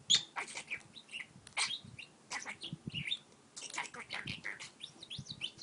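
Pet parakeet (budgerigar) chattering, a fast run of short chirps and squiggly warbling notes.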